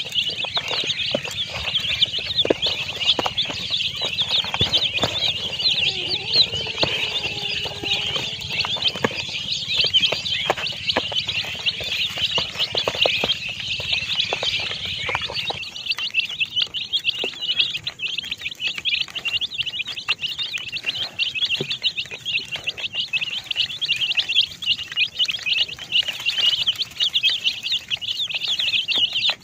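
A flock of baby chickens peeping continuously, many high chirps overlapping, with scattered sharp clicks through the first half.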